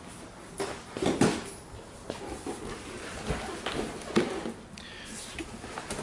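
Handling noise of latex balloons: a few soft knocks and rubbing sounds as a balloon cluster is handled and pressed into place on a balloon column.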